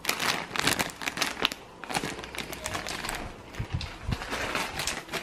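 Packaging being handled and crinkling: an empty cardboard snack box and its plastic wrapping rustling with irregular crackles.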